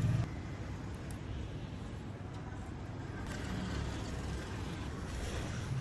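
Low, steady rumble of a motor vehicle.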